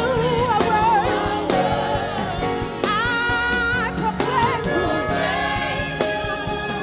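Gospel worship singing: voices sing over a steady instrumental backing, with one long held note about halfway through.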